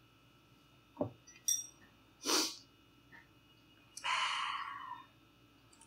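A mug set down on the table with a knock, a click, and a quick breath through the nose or mouth. Then about a second of blowing on a hot bite of hot pot held up in chopsticks, starting sharply and fading away.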